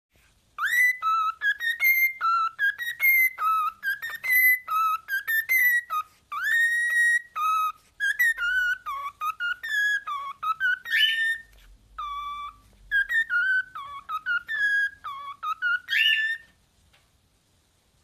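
Cockatiel whistling a tune: a long run of short, clear whistled notes, many sliding quickly up or down in pitch, stopping near the end.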